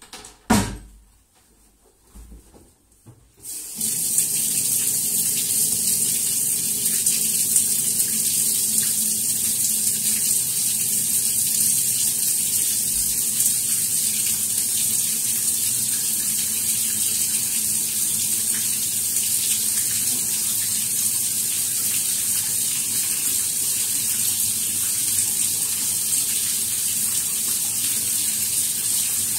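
Tap water running steadily into a tub or basin, turned on about four seconds in. A single sharp knock comes just before, near the start.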